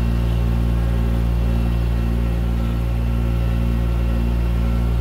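Compact tractor engine running at a steady speed as the tractor drives along.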